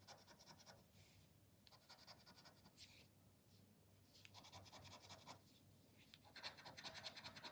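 Faint scratching of a scratch card's coating being rubbed off in short, irregular strokes.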